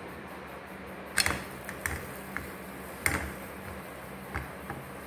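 Several short clicks and light knocks as a rolled paratha is laid on an iron tawa and shifted by hand, the loudest about a second in and again about three seconds in, over a steady low hum.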